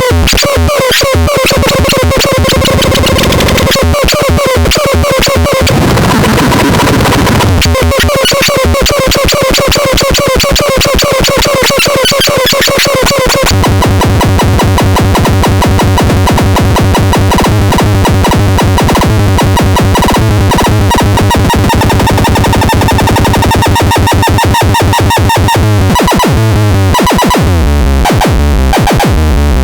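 Loud, harsh electronic synthesizer sound with fast repeating pulses. About halfway through the texture changes to a steadier pattern over a pulsing bass, with falling pitch sweeps near the end.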